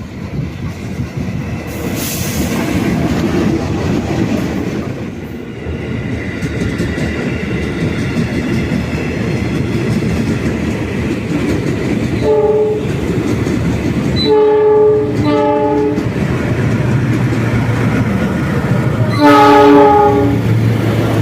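Train running with the steady rumble and clatter of its wheels on the rails, its horn sounding four times: a short blast about twelve seconds in, two blasts in quick succession, then a longer, louder blast near the end.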